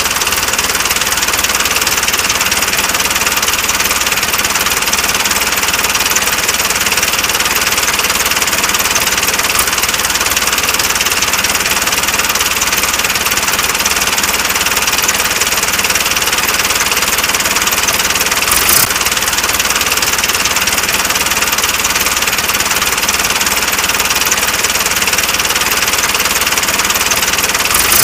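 A tractor engine running steadily, with one brief click about two-thirds of the way through.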